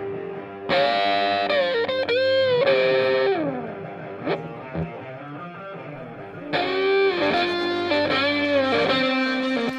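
Background music: an electric guitar with effects playing phrases of bent, sliding notes, one starting just under a second in and another just past halfway.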